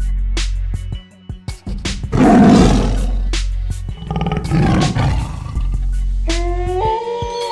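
Tiger roar sound effect over background music: a loud roar about two seconds in and a second, weaker one about four seconds in.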